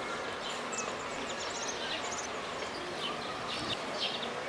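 Outdoor ambience: a steady background hiss with small birds chirping, short high chirps repeated in little clusters.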